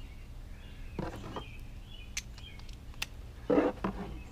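Scattered sharp clicks of hand tools being handled under the hood, with a brief vocal sound about three and a half seconds in.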